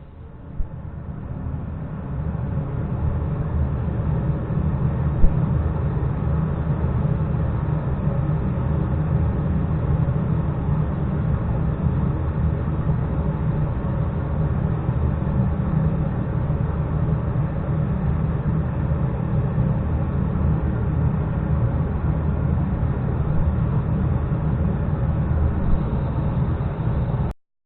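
A 120 mm inline duct fan in a homemade welding-fume extractor box spinning up over the first two seconds, then running steadily with a low rumble of moving air. There is a single sharp knock about five seconds in, and the sound stops abruptly near the end.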